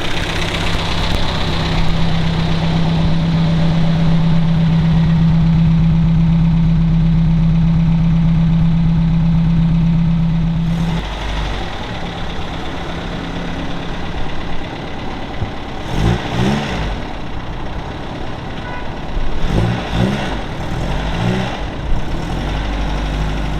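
Supercharged MG inline four-cylinder engine running: it holds a steady raised speed for about the first eleven seconds, then drops back to a lower, less even idle, with a few short swells later on.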